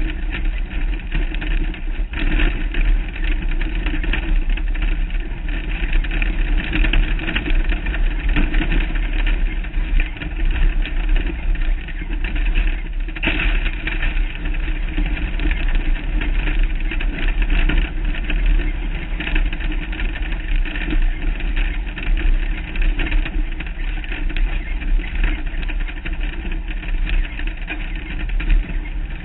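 Off-road race truck's engine running steadily as it drives over a rough dirt desert track, heard through a hood-mounted camera with a strong low rumble of wind and vibration.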